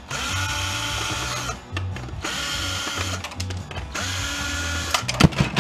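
Ryobi cordless drill/driver backing screws out of a metal monitor-stand plate. It runs in several spurts of about a second each, with brief pauses between them, and there are a few sharp clicks near the end.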